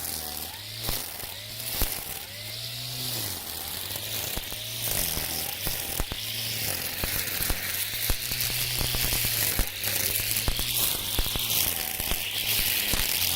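Makita 40V cordless brush cutter spinning Oregon Flexiblade nylon line through overgrown weeds: a dense hiss full of sharp ticks as the line strikes stems, over a motor whine that shifts in pitch during the first few seconds under changing load.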